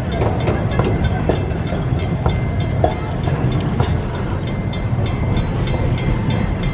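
Railroad grade-crossing bell ringing rapidly, about four strokes a second, over the low rumble of the narrow-gauge zoo train's cars rolling past and away; both die away near the end.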